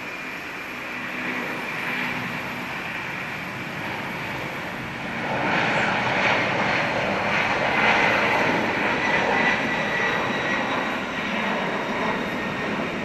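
Jet airliner's engines running, a steady rush that grows louder about five seconds in, with a thin high whine over it.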